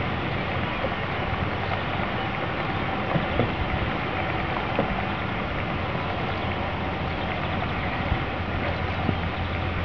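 Steady rushing noise of flowing river water, with a few faint knocks scattered through it.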